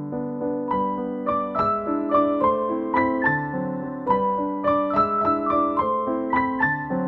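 Background music: a gentle piano melody, notes struck one after another at a few per second over sustained lower notes.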